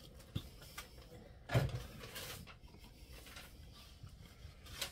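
Fork lifting instant ramen noodles out of a paper cup, with a few short knocks and scrapes, the loudest about one and a half seconds in, followed by a brief hiss.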